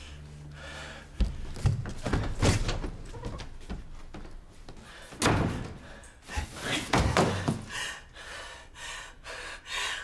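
A door slamming shut, among a series of sharp thuds and knocks in a room.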